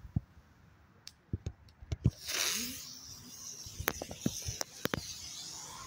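A small thrown consumer firework hissing as it burns: a sudden whooshing spray about two seconds in that settles into a high hiss. Scattered clicks and knocks sound before and around it.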